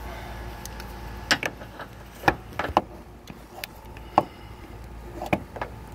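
A few scattered sharp clicks and knocks, about six over several seconds, over a faint steady hum: the handling noise of a handheld camera being moved and reframed under a truck.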